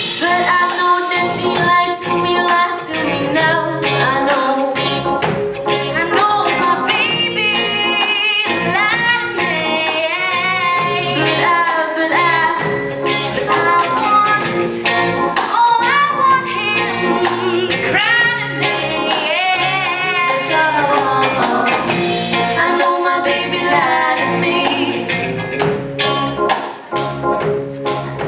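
Live pop-rock band playing: two female singers carry the melody over electric guitar, synthesizer organ, bass guitar and a drum kit keeping a steady beat.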